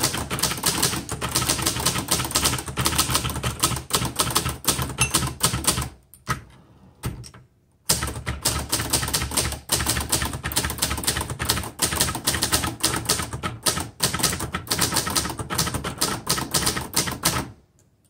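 1969 Hermes 3000 manual portable typewriter being typed on: a rapid, continuous clatter of keystrokes in two long runs, broken by a pause of about two seconds in the middle.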